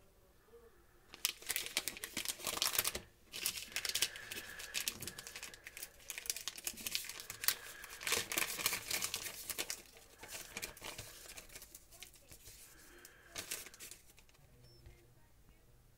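Plastic packaging pouch crinkling and crackling as it is handled and opened to take out a clear TPU phone case. The crinkling is dense from about a second in to about ten seconds, then thins out, with a short burst near the end.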